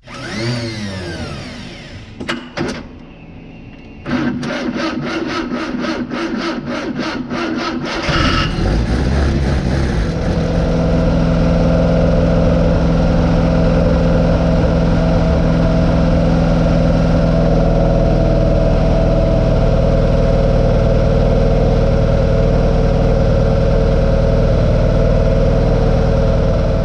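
An engine revving down in a falling pitch at the start, then a built 1975 Chevy 400 small-block V8 with a 3/4 race cam is cranked over by its starter in rapid even pulses for about four seconds. It catches about eight seconds in and settles into a steady, loud idle through Black Widow Venom 250 mufflers.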